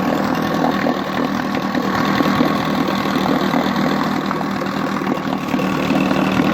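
1959 Johnson QD-20 10 hp two-cylinder two-stroke outboard motor running steadily.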